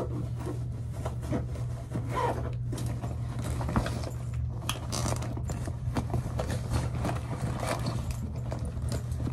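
Scraping, rustling and scattered clicks of belongings being handled, over a steady low hum.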